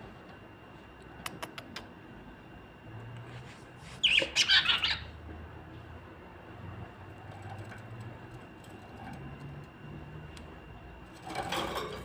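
Small pet parrots ("love birds") calling, with a short loud burst of squawking about four seconds in and more calling near the end. A few light clicks come shortly before the squawks.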